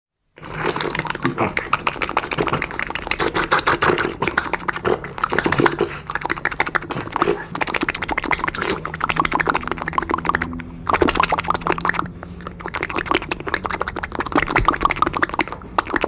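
Specially created comic goose gobbling effect: a fast, continuous chattering gabble with a short break about ten and a half seconds in.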